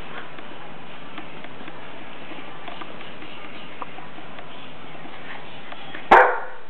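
Light scattered ticks and taps of German Shepherd puppies' claws and paws on a hard kennel floor over a steady hiss, then, about six seconds in, one short loud bark from an adult dog.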